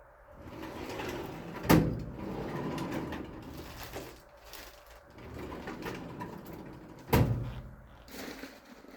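Hands-on workshop handling of metal parts: two sharp knocks about five and a half seconds apart, with scraping and rubbing sounds between them.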